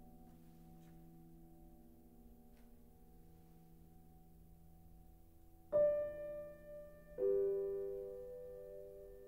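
Contemporary music for piano and electronics: a quiet sustained drone of steady tones, then about six seconds in a piano chord is struck, and another a second and a half later, each left to ring and fade.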